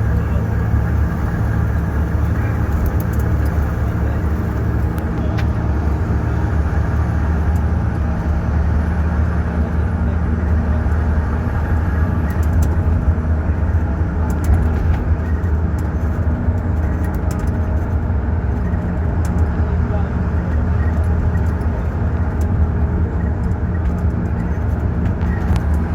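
Ashok Leyland bus's turbocharged diesel engine running steadily on the move, with a faint high turbo whistle wavering up and down through the first half.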